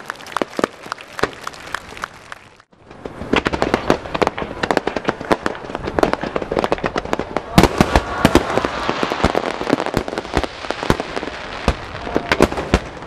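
Fireworks going off in quick succession, sharp bangs and crackles overlapping. After a brief silent break near the three-second mark, a denser, louder barrage starts: the finale's underwater star mine, with shells bursting at the water's surface.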